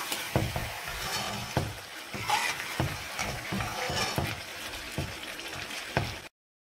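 A spoon stirring chicken pieces in a thick masala in a frying pan, knocking and scraping against the pan every half second or so, with sizzling underneath. Cuts off suddenly near the end.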